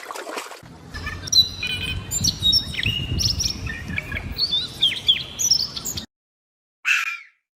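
Songbirds chirping and singing: many quick whistled notes with short pitch glides, over low outdoor background noise. The recording cuts off abruptly about six seconds in, and a brief hissy burst follows near the end.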